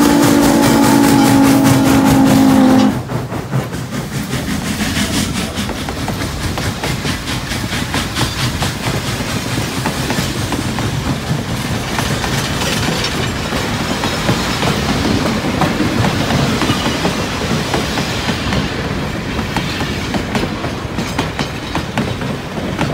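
Norfolk & Western J-class 611 steam locomotive's whistle sounding a steady chord, cutting off sharply about three seconds in. Then the train of freight cars and caboose rolls past, wheels clicking rhythmically over the rail joints.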